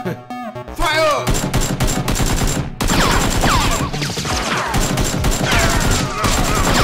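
Rapid gunfire sound effects, a dense volley of shots starting about a second in, with several falling whistles like bullets whizzing past laid over the shots.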